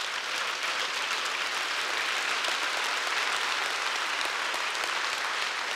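Audience applauding steadily, the clapping building up over the first second.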